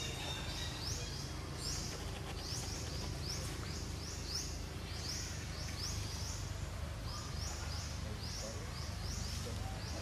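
Outdoor ambience: a steady run of short, high, upward-sweeping chirps repeating two or three times a second, over a low, steady rumble.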